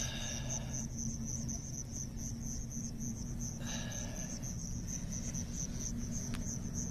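Crickets chirping steadily in the grass, a rapid, evenly spaced run of high chirps, over a steady low hum.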